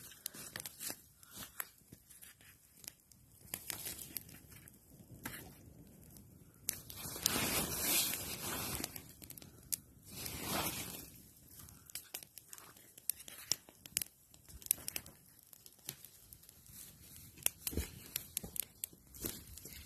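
Small wood campfire crackling and snapping irregularly as it is poked and tended with a stick, with twigs and dry leaves rustling. Two longer rushes of noise, louder than the crackle, come partway through.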